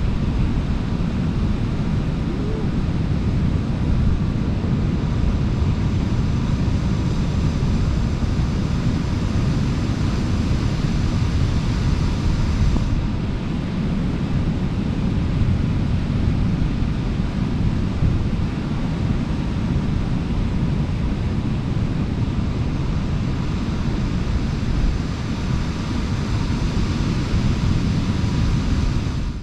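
Wind on the microphone over steady surf, a continuous low rushing noise with a faint steady hum above it.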